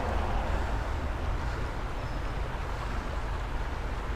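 Steady rush of a small creek's flowing water, with a low rumble of wind on the microphone.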